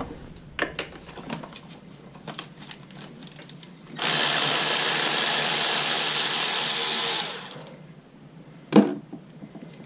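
A loud, even hiss of rushing compressed air from a blow gun, lasting about three and a half seconds, starting suddenly about four seconds in and tailing off. Light clicks and knocks from handling parts come before and after it.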